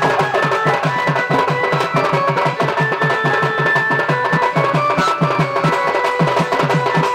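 Folk dance music: a barrel drum beating a quick, steady rhythm, with held melodic notes sounding above it.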